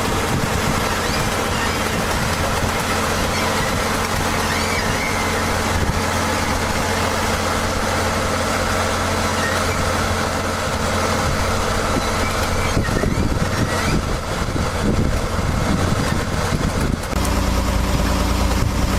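A heavy vehicle engine running steadily. Its note roughens for a few seconds, then settles into a steadier low hum near the end.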